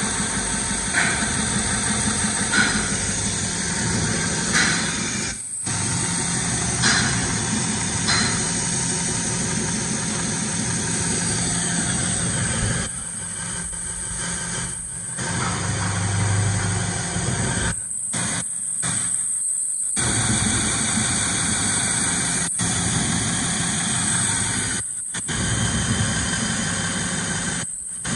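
IWM vertical edge sander running, its 3 kW motor and long abrasive belt giving a steady hum and hiss with a thin high whine. The sound cuts out abruptly for short moments several times.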